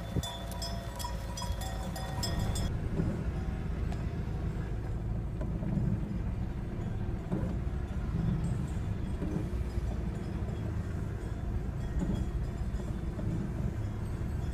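Low, steady rumble of a car driving slowly behind a flock of sheep, heard from inside the cabin. For the first few seconds sheep bells clink in a regular rhythm, then cut off abruptly.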